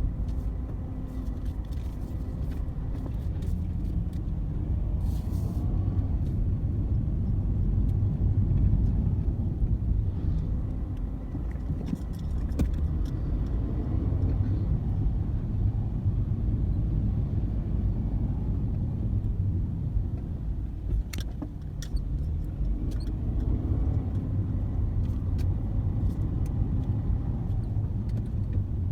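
Steady low rumble of motor vehicles, with a few brief clicks.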